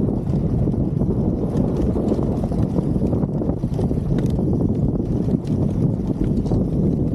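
Wind buffeting the microphone of a camera riding along with an enduro motorcycle, a steady dense rumble, with a few light ticks scattered through it.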